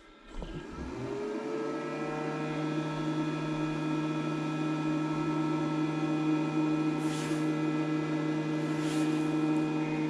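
The internal cooling fan of a SUN GTIL2 2000 W grid-tie solar inverter spins up about a second in, runs steadily with a hum of several stacked tones, then winds down with a falling pitch at the end. This is the inverter's high-speed fan kicking in, loud at about 55–58 dB on a sound meter.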